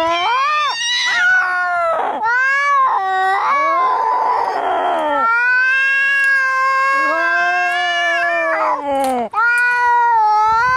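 Angry cats caterwauling in a fight: long, drawn-out yowls that waver up and down in pitch, with a harsh, noisy cry about four seconds in.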